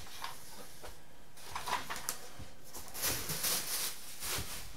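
Thin plastic bag rustling and crinkling as it is pulled out and handled, loudest in the second half, with a couple of light knocks about two seconds in.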